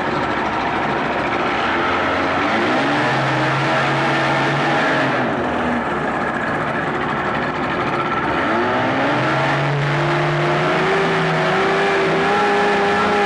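1984 Evinrude 25 hp twin-cylinder two-stroke outboard running in forward gear in a test tank. The throttle is opened about two and a half seconds in, eased back around five seconds, then opened again near ten seconds and held at a steady higher speed.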